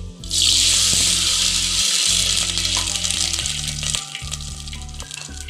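Water poured from a cup into hot oil with fried whole spices in a steel pot sets off a loud sizzle that begins about a third of a second in and dies down after about four seconds.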